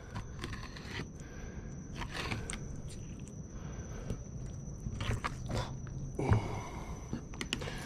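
Fillet knife cutting through a raw black drum fillet, with scattered small crunches and scrapes as the blade goes through the pin bones and flesh.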